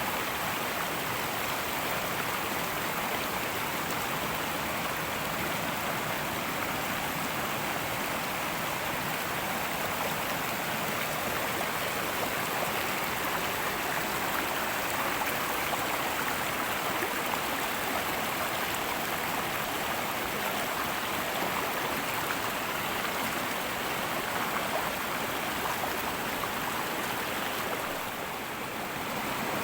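Fast-flowing river rushing and babbling over rocks, a steady, even water noise.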